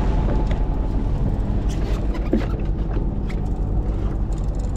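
Boat engine running steadily, a low drone, with a few faint ticks over it.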